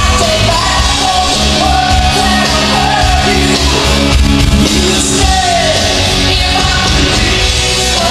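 Loud music with a lead singing voice over heavy bass.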